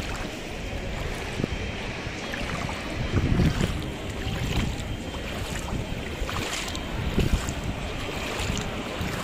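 Wind buffeting the microphone outdoors, a steady low rumble with a stronger gust about three seconds in.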